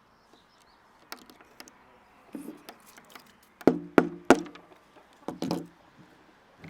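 Pocket knife splitting and working a small piece of wood: a series of sharp clicks and knocks, three loudest in quick succession about four seconds in.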